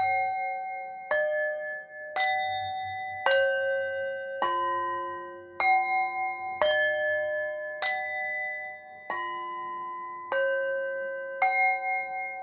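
Slow, even melody of struck bell-like chime notes, about one a second. Each note rings on and overlaps the next.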